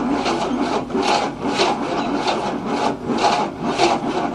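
1967 Cadillac V8 turning over slowly on its starter motor without firing, in rhythmic pulses about twice a second. The slow cranking is the sign of a weak battery that cannot spin the engine fast enough to start.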